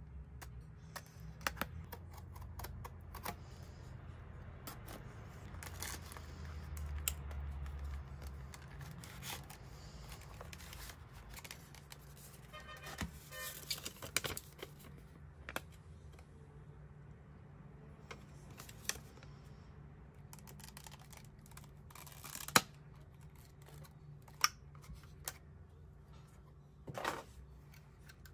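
Unboxing a Logitech Pebble mouse: a craft knife slits the cardboard box's seal, then the box is opened and paper inserts rustle as they slide out. Scattered sharp clicks and taps of cardboard and plastic being handled run throughout, the loudest about two thirds of the way through.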